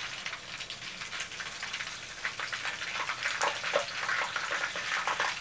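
Hot oil crackling and sizzling around rice-wrapped shrimp rolls deep-frying in a pan, with a sharp click about three and a half seconds in.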